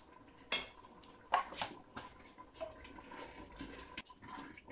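A metal utensil clinking and scraping against a stainless-steel cooking pot: a few separate sharp clinks, then a stretch of scraping stirring near the end.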